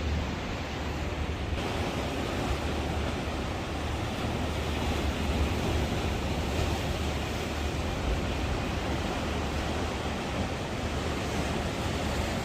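Ocean surf breaking and washing on a sandy beach in a steady roar of noise, with a low wind rumble on the microphone underneath.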